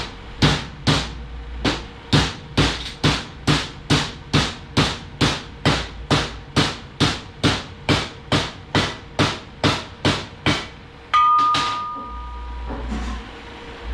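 Hammer striking repeatedly, over twenty even blows about two a second, during transmission reassembly. About eleven seconds in, the blows stop and a single louder metallic hit rings with a clear tone for about a second and a half.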